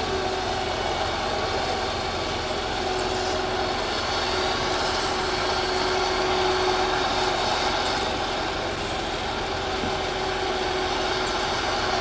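Heavy equipment's engine running steadily, with a constant whine over its hum.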